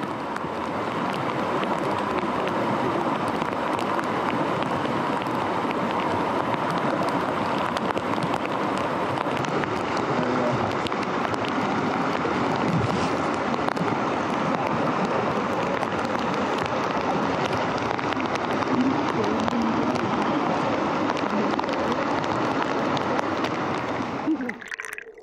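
Steady rush of a fast-flowing, rain-swollen creek mixed with falling rain, with many small drop ticks through it.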